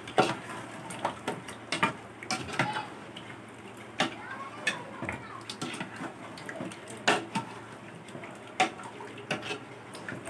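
Metal ladle knocking and scraping against the inside of a metal cooking pot as chicken pieces in spices are stirred, in irregular clinks.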